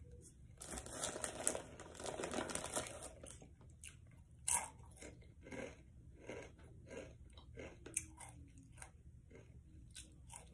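Someone chewing crunchy chips close to the microphone: a string of short, irregular crunches, most frequent in the first few seconds.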